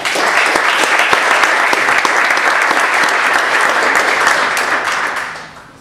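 Audience applauding: loud, dense clapping that fades away near the end.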